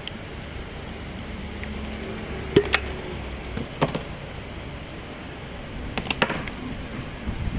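Hard parts being handled during motorcycle fork work: a few sharp clinks and knocks, two close together about two and a half seconds in, one near four seconds and a quick cluster about six seconds in, over a steady low workshop hum.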